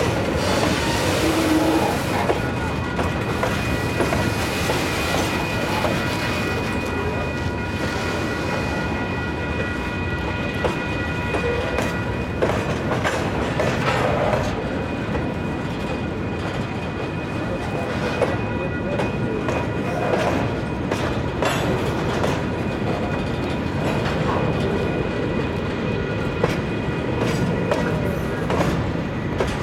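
Freight train of grain hopper cars rolling past, wheels clicking over the rail joints. A steady high-pitched whine rings over the rumble for roughly the first half, then fades.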